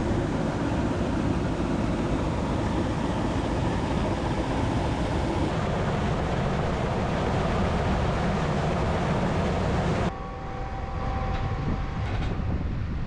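A tractor runs steadily with a rattling rumble while hauling grain wagons. About ten seconds in it drops abruptly to a quieter hum with a faint steady whine and a few clicks.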